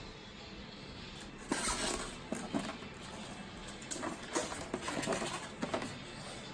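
Plastic packaging and figure accessories being handled: irregular rustling and crinkling with a few light clicks, starting about a second and a half in and settling near the end.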